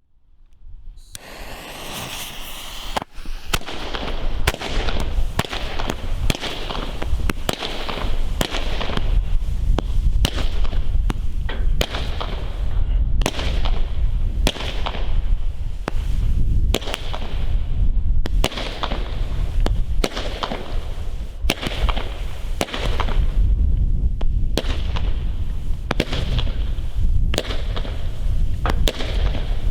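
Nico Flying Fish fireworks battery firing: a sharp launch pop about once a second, each followed by a hissing swarm of flying-fish effects, starting about a second in.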